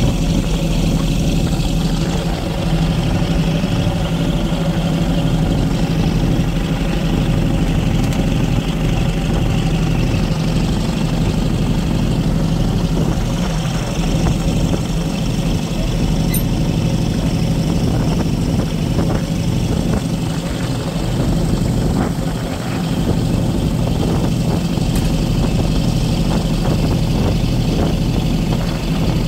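Fishing boat's engine running steadily at cruising speed, a constant low hum, with the rushing wash of its foaming wake.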